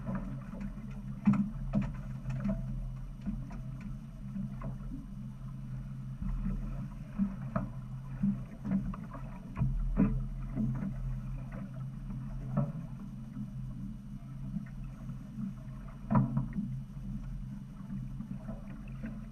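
A fishing boat's engine idling with a steady low hum, overlaid by scattered knocks and clicks.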